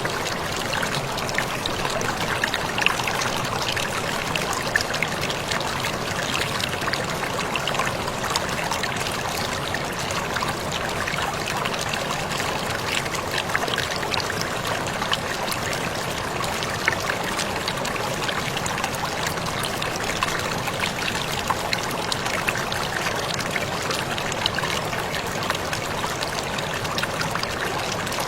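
Waterfall splashing steadily, a constant rush of falling water with many small droplet splashes and no change throughout.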